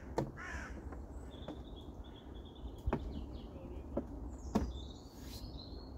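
About five sharp knocks and clunks from handling a fold-out table at the back of a small van, over a steady low rumble, with a bird chirping faintly in between.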